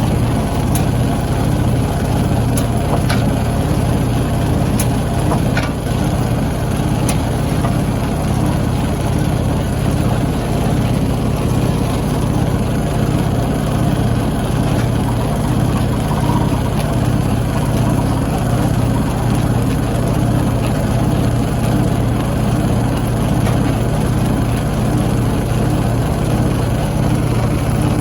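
Stone crushing machinery running with a steady low hum, with a few faint sharp clicks in the first several seconds.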